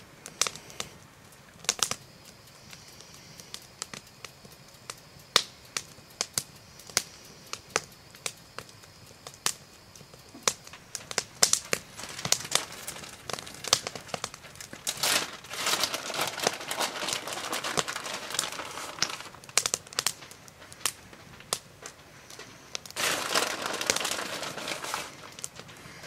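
Plastic bag of shredded mozzarella crinkling as it is handled, densest in two stretches in the second half. Scattered sharp clicks and taps run through the first half.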